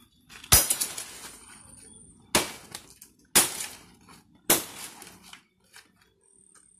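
Machete chopping into the soft stem of a fallen banana tree: four sharp chops spread over about four seconds, with lighter rustling and clatter of leaves between them.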